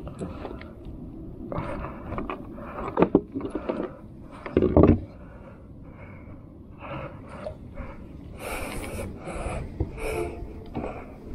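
Fish-handling noises on a plastic kayak deck as a hook is worked out of a small grouper with pliers: irregular scrapes and knocks, the loudest a heavy thump about four and a half seconds in, then short hissy bursts near the end.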